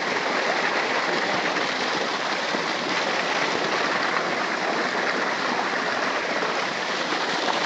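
A thick jet of water gushing from an outlet pipe into a pool tank, splashing and churning the surface in a steady, unbroken noise.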